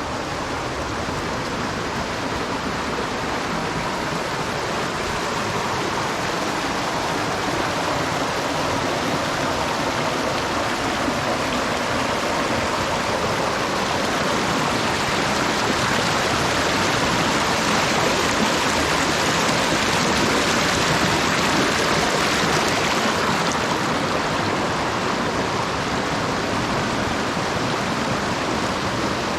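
Water rushing over rocks in a creek at a small waterfall, a steady loud rush that grows a little louder past the middle and eases near the end.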